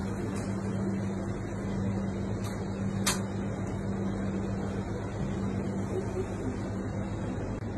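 A steady low machine hum over even background noise, with one sharp click about three seconds in.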